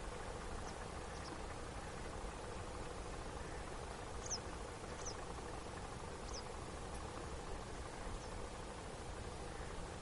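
Steady outdoor background noise with a few short, high chirps that slide down in pitch, three clear ones spaced about a second apart in the middle, from a small bird. No goose honking is heard.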